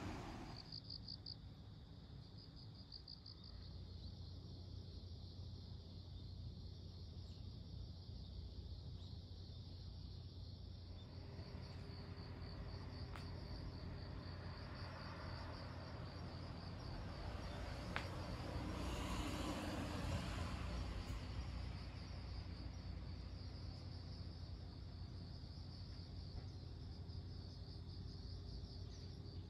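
Insects, crickets by their sound, chirping in a steady high-pitched pulsing chorus over a low steady rumble, with a broader swell of noise around twenty seconds in.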